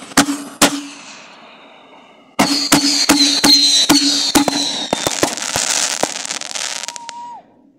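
42-shot consumer firework cake firing its final shots: two sharp bangs in the first second, a lull, then from about two and a half seconds in a louder volley with a high whistle and dense crackling. It all cuts off about seven and a half seconds in.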